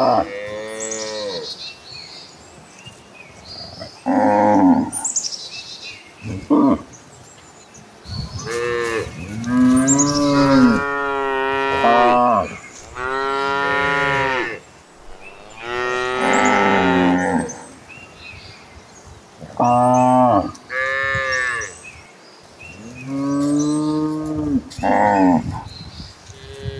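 Cattle mooing again and again, about a dozen long calls that rise and fall in pitch, some overlapping as several cows call at once.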